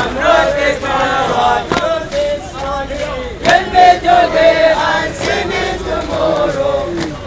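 Crowd of marching protesters chanting in unison, many male voices singing together.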